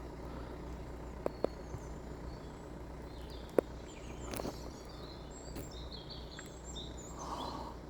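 Quiet outdoor ambience with a steady low background hum, faint small-bird chirps and a few soft clicks.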